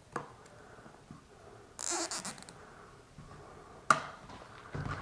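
A plastic zip tie threaded through a link of the slide-out drive chain is pulled tight, making a short rasping ratchet about two seconds in. Light clicks and knocks come from hands on the chain and sprocket, with one sharp click near the end.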